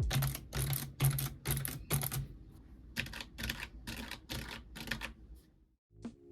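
Mechanical keyboard being typed on: a steady run of sharp key clicks, about three a second, that stops shortly before the end.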